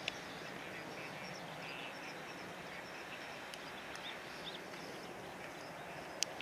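Steady outdoor background hiss with faint bird chirps scattered through the middle, and two sharp clicks near the end.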